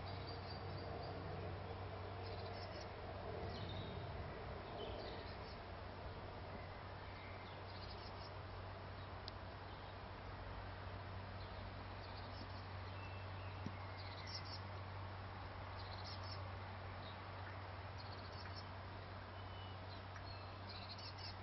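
Faint outdoor ambience: a steady low hum with small birds chirping briefly and irregularly.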